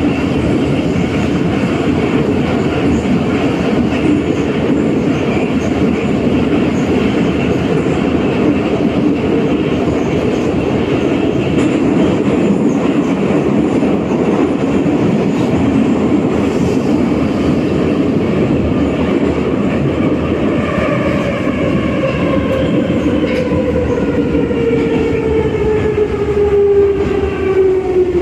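Metro train heard from inside the car, running through the tunnel with a steady, loud rumble of wheels on rail. From about two-thirds of the way in, a whine falls steadily in pitch as the train slows for the next station.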